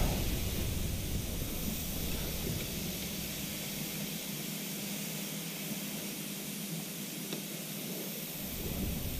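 Steady hiss with a low hum underneath and a couple of faint ticks: shop background noise.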